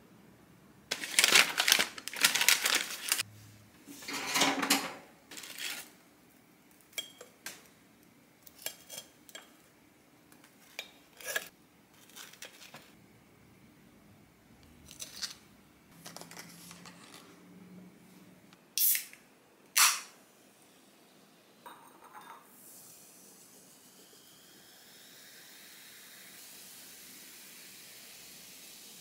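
Kitchenware being handled: dishes and utensils clink and knock, with rustling scrapes in the first few seconds and sharp clicks later. A steady hiss comes in over the last several seconds.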